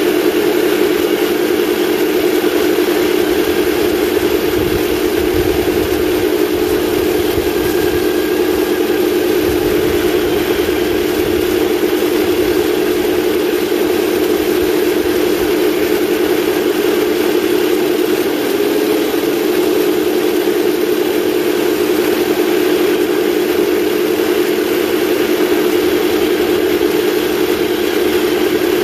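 1/16-scale radio-controlled tanks driving over a gravel road: a steady droning hum from the drive and engine-sound units, over the hissing rattle of plastic tracks on gravel. There is a brief wobble in the hum a little past the middle.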